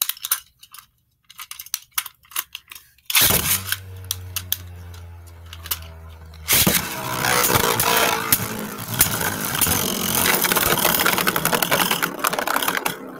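Beyblade spinning tops: a few light plastic clicks, then about three seconds in one top is launched and spins with a steady hum, and about three seconds later a second launch sets them spinning and clashing in a plastic stadium, with loud rattling and scraping that dies down near the end.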